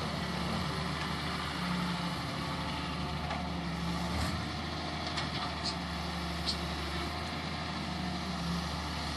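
Wheel excavator's diesel engine running steadily, its note rising and easing slightly, with a few short clicks about halfway through.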